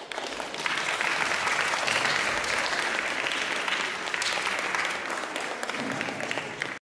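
A group of people applauding, many hands clapping at once in a steady, even patter that cuts off suddenly near the end.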